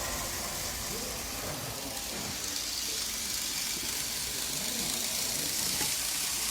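Steady, even background noise of a rental model-railway layout room where N-gauge trains are running.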